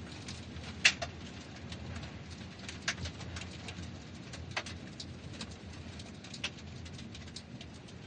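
Car tyres rolling over gravel: a steady low rumble with a constant crackle of small stones. Four sharper clicks of stones stand out, the loudest about a second in.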